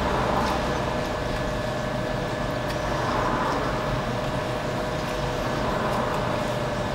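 Steady mechanical hum and hiss with a faint steady tone running through it.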